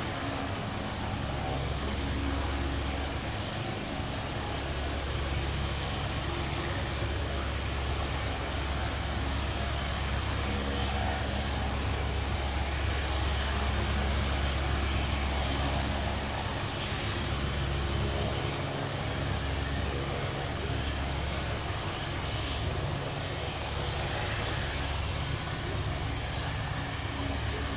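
A helicopter's engine and rotor running steadily, with a strong low hum that holds throughout and eases slightly after the middle.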